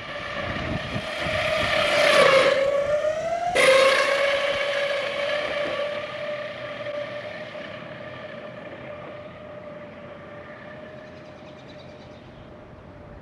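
Ecomobl M24 all-wheel-drive electric skateboard's motors whining as it pulls away, the pitch rising and dipping with speed. About three and a half seconds in it drops suddenly to a steadier whine that slowly gets quieter.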